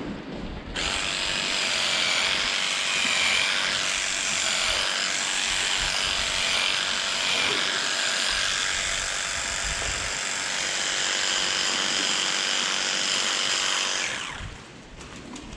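Handheld electric livestock clippers running steadily with a high whine as they cut through the hair of a cow's tail switch. They switch on about a second in and cut off shortly before the end.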